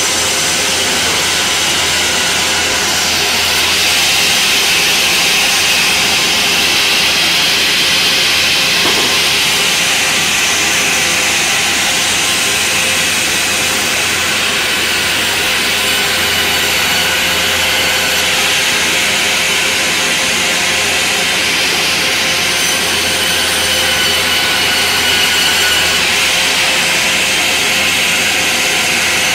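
Large sawmill band saw running steadily and cutting through timber: a continuous hiss of the blade in the wood over a low, steady machine hum.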